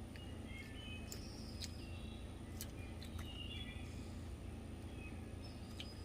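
Faint bird chirps, short and scattered, over a steady low hum, with a few soft clicks.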